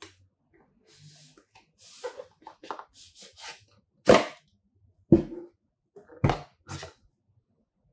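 Cardboard packaging being handled: rustling and scraping as the sleeve is gripped, then the inner box is slid out of its outer sleeve with a few short, loud rubbing scrapes about a second apart.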